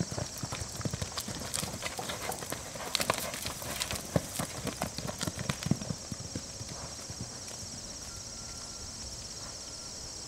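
Hoofbeats of a horse loping on arena sand, loudest over the first six seconds and then fading as the horse moves away.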